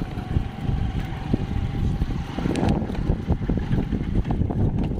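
Wind buffeting the microphone in an uneven low rumble, over a small scooter engine running on the move.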